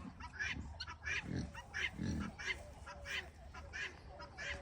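Birds calling in short, quickly repeated notes, about three a second, with two low grunts about one and two seconds in.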